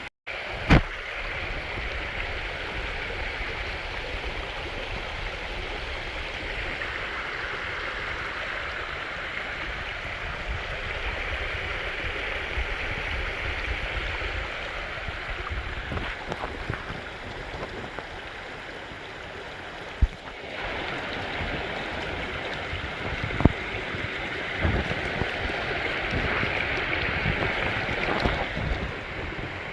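Steady rush of waterfall water splashing into a rainforest pool, with a few short sharp knocks, one near the start and two past the middle.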